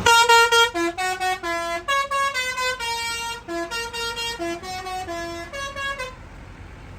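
Bus telolet horn playing a rapid tune of short notes that step up and down in pitch, then cutting off about six seconds in.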